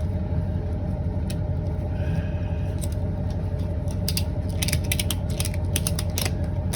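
Ratchet strap being cranked tight around a tubeless tire's tread to push the beads out toward the rim, with a quick run of ratchet clicks in the second half over a steady low hum.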